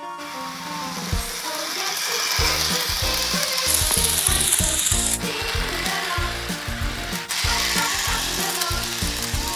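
Toy electric train running on plastic track, its motor and wheels making a steady mechanical noise as the cars pass close by.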